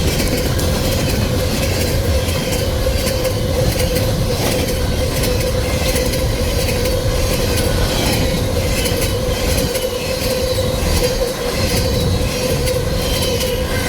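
Cars of a loaded coal train rolling past close by. The wheels click over the rail joints, with a steady high squeal throughout.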